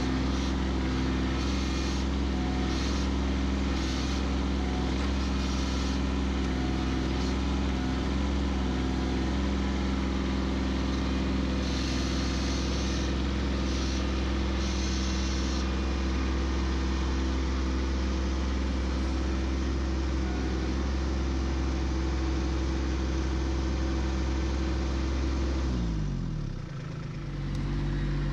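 Kubota B2601 compact tractor's diesel engine running steadily. About 26 seconds in its speed drops sharply, then it settles at a lower steady note.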